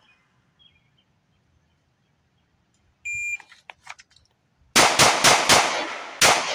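A shot timer beeps once, followed by the small rustle and clicks of drawing from a concealed leather holster; then an AREX Zero 2S 9mm pistol fires four quick shots and, after a short pause, a fifth, with echo trailing after each.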